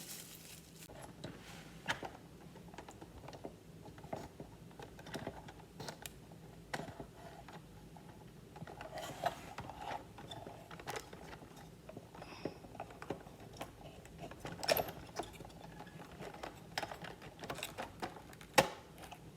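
Irregular small clicks and taps of wooden kit pieces being handled and pressed into place, with a few louder knocks.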